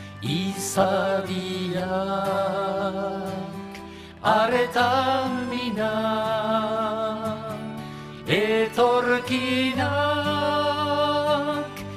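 Two men singing a Basque-language song to acoustic guitar. Three sung lines of about four seconds each, starting near the beginning, about four seconds in and about eight seconds in.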